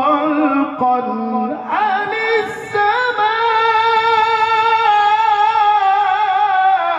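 A man singing solo into a microphone in an ornamented, bending vocal line. From about three seconds in he holds one long note with a wavering vibrato, and it falls away near the end.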